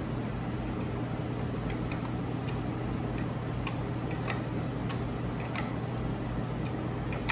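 Faint, scattered small metal clicks and ticks from hand tools and parts being worked inside a tractor distributor's breaker-point assembly, over a steady low background hum.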